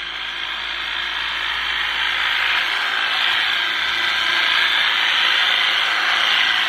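Handheld electric tea-plucking trimmer with a reciprocating toothed blade, running steadily as it shears tea shoots: an even, hissing whirr.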